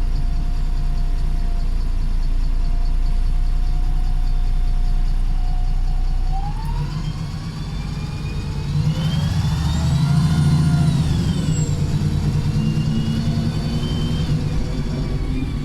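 Wright Pulsar single-decker bus heard on board: a low engine rumble under a high whine from its whiny gearbox and loud differential. The whine holds a steady pitch, sinking slightly, then jumps up about six seconds in. From about eight seconds it rises and falls in an arc, several pitches together, and falls away again near the end.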